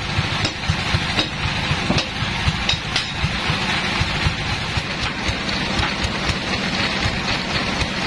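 Band sawmill running steadily, its engine a fast low chugging under constant mechanical noise.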